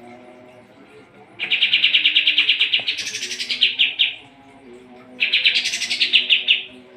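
White-shouldered triller (kapas tembak) singing two long, rapid trills: the first starts about a second and a half in and lasts about two and a half seconds, the second about five seconds in and lasts a second and a half, each rising in pitch near its end.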